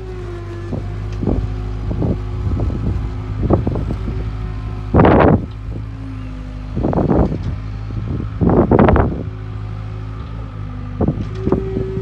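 Case 410 skid steer's diesel engine running steadily as the machine drives about and raises its bucket. Loud gusts of wind buffet the microphone about five, seven and nine seconds in.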